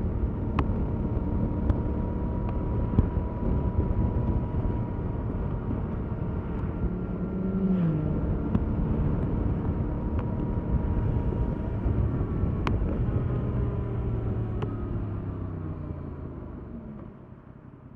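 Stock 2021 Yamaha MT-07's 689 cc parallel-twin engine running on the move, with road and wind noise. Its pitch shifts about halfway through. Near the end the engine sound falls in pitch and level as the bike slows.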